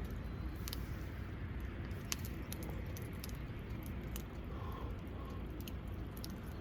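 Wood fire crackling, with irregular sharp pops scattered over a steady low rumble.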